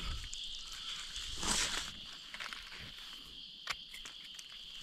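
Footsteps and rustling in dry forest leaf litter, soft crackles with a louder rustle about one and a half seconds in and a single sharp snap later, over a steady high insect buzz.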